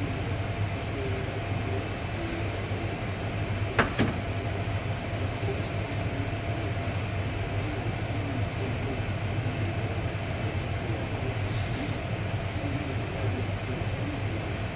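Steady machine hum and hiss, with two sharp clicks close together about four seconds in.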